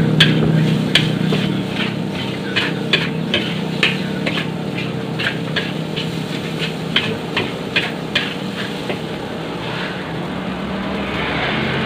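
A metal spatula clanking and scraping against a large wok as fried rice is stir-fried, about two to three strikes a second, stopping about nine seconds in, over a steady low hum.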